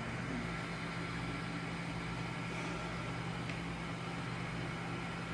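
Steady low hum of room tone, with a faint click about three and a half seconds in.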